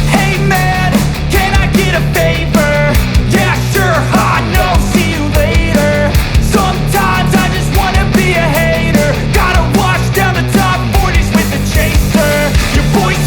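Loud rock music soundtrack with a steady beat and a melodic lead line.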